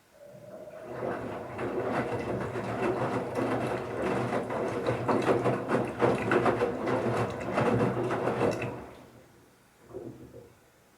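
Bauknecht Super Eco 7615 washing machine turning its drum during the wash: the motor hums while the towels tumble with many small knocks. The sound builds up within the first second, runs for about eight seconds, then winds down, with a short second turn of the drum near the end.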